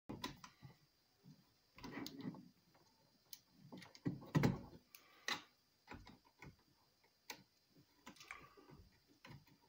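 Faint, scattered clicks and knocks of hands fitting wires and plug-in screw terminal blocks onto a plastic panel-mount temperature controller.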